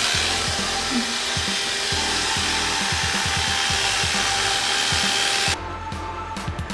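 Electric hair clippers running against the hair as they blend a fade on the side of the head, switched off about five and a half seconds in. Background music with a beat runs underneath.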